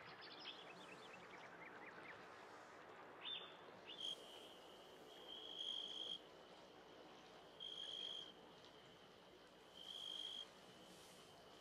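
Faint night ambience. A bird gives a run of quick chirps in the first few seconds, then a cricket trills on one high pitch from about four seconds in, swelling louder every couple of seconds.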